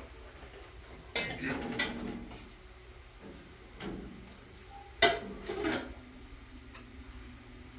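Metal pots and utensils clattering: a few separate knocks and scrapes, the sharpest and loudest about five seconds in.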